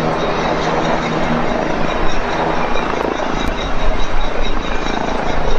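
Bell 429 twin-turbine helicopter running as it touches down and settles onto its skids: steady rotor and engine noise with a high whine over it.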